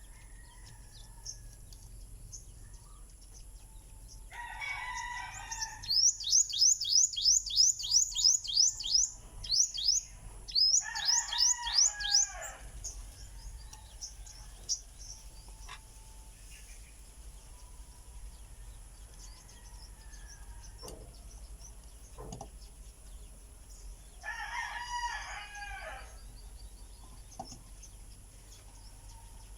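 A rooster crowing three times: about four seconds in, about eleven seconds in, and near the end. Each crow lasts about a second and a half. Between the first two crows, a small bird gives a fast run of loud, high chirps, the loudest sound here.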